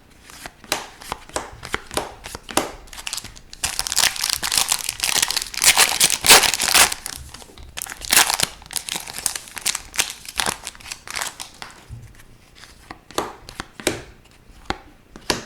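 Foil trading-card pack wrapper being torn open and crinkled, a dense crackle for a few seconds in the middle, with quick clicks and snaps of cards being handled before and after.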